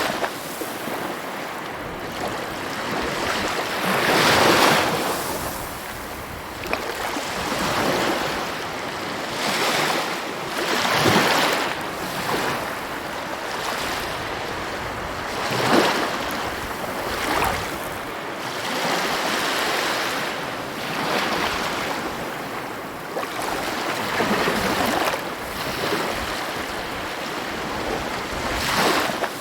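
Sea waves: a continuous wash of surf that swells into a louder surge every few seconds, about eight in all.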